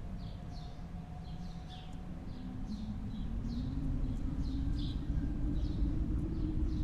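Small birds chirping, short high falling chirps several times a second, over a low rumble that is the loudest sound and grows louder over the second half.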